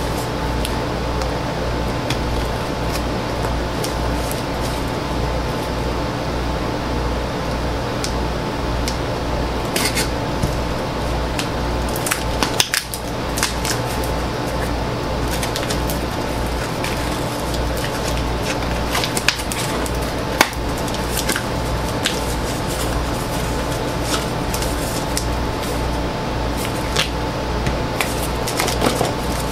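Hands opening a taped cardboard shipping box, played back sped up: scattered clicks, scrapes and rustles of cardboard and tape over a steady low hum.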